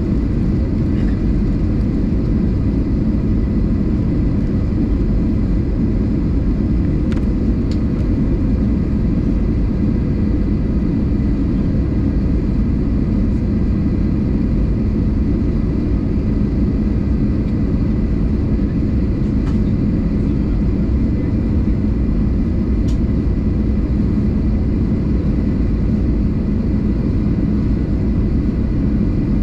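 Steady cabin noise inside an Airbus A320 in flight on its descent: a constant low rumble of engines and airflow with a faint steady whine. A few faint ticks sound about a quarter, two-thirds and three-quarters of the way through.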